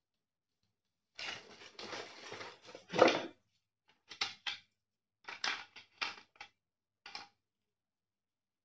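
Hands handling packaging and plastic parts: a couple of seconds of rustling with a sharp clatter near the peak, then several short rustles and clicks.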